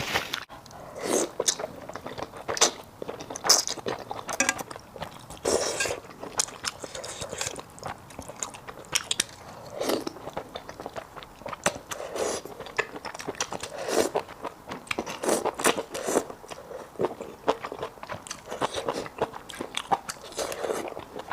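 Close-miked eating of sticky malatang: a person chewing and biting mouthfuls, with wet mouth clicks and smacks coming in irregular bursts about every second.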